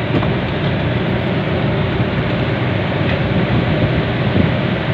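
A slow-moving vehicle running, heard from on board: a steady low rumble with even road and motion noise.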